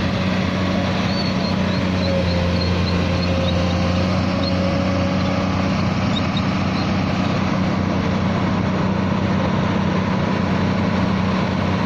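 Komatsu PC200 hydraulic excavator's diesel engine running steadily with a low, even hum. Faint high chirps sound in the first half.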